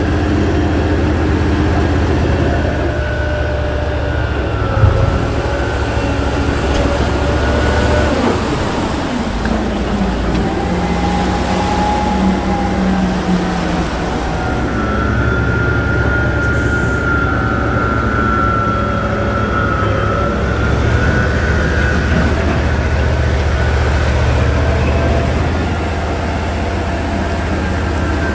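Heavy diesel engine of an amphibious military bridging vehicle running loud and steady under load as it drives through the water and up out of the river, with water churning around the hull. The engine note drops and then climbs again about a third of the way in, and there is one short sharp knock about five seconds in.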